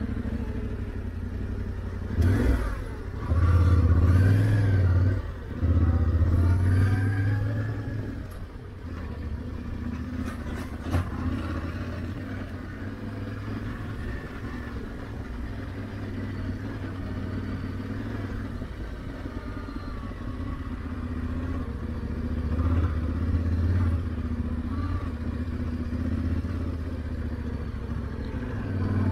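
Motorcycle engine on the move, its pitch rising and falling as the throttle opens and closes, with loud pulls in the first few seconds and again a little after twenty seconds. A few sharp clicks about nine to eleven seconds in.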